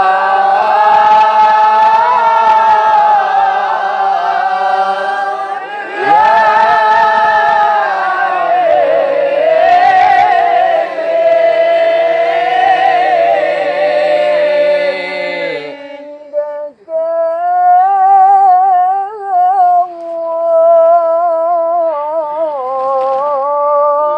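Islamic sholawat sung in Arabic: a voice holding long, ornamented melismatic phrases. About two-thirds of the way through, the fuller sound drops away, leaving a single voice with quick wavering ornaments.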